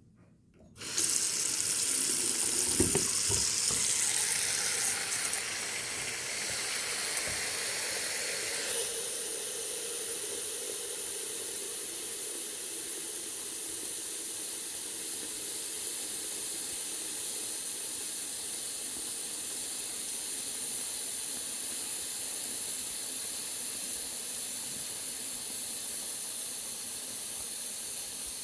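Bathroom faucet turned on about a second in, water running from the tap into the sink basin and filling it. About nine seconds in the sound changes and settles into a steady hiss.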